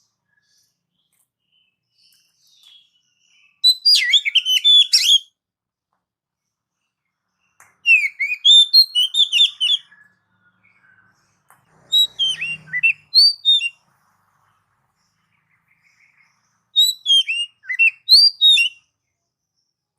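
Oriental magpie-robin (kacer) singing: four short phrases of quick, varied high notes, each about a second and a half to two seconds long, separated by pauses of a few seconds.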